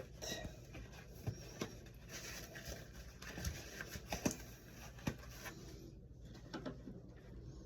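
Faint scattered clicks and handling noise from working a wall light switch and its fittings by hand, a few sharper ticks standing out over a steady low background hum.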